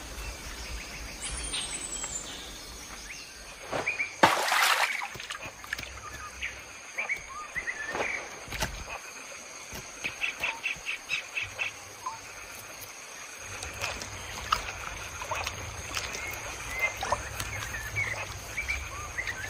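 Forest ambience: a steady high insect drone with scattered bird chirps and calls, including a rapid run of short pulsed calls about ten seconds in. A loud harsh burst stands out about four seconds in.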